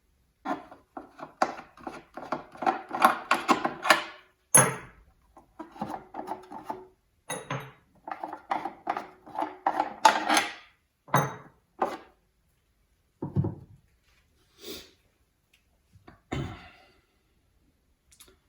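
Hard parts being handled: a dense run of clicks and clatter for about twelve seconds, then a few separate knocks.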